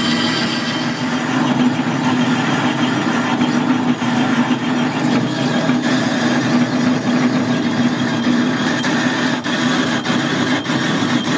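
Metal lathe running under cut, its tool turning the outside of an aluminium plate round: a steady motor and gear hum with a few sharp ticks near the end.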